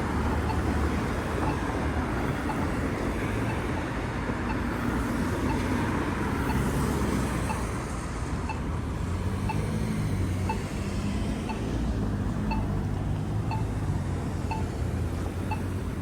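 Polara EZ Communicator crosswalk pushbutton locator tone ticking about once a second, the slow beat that marks the Don't Walk phase, over steady road traffic.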